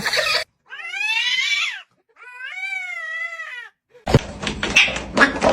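A domestic cat meowing twice: two long, drawn-out meows with a wavering pitch. From about four seconds in, a burst of clattering and knocking.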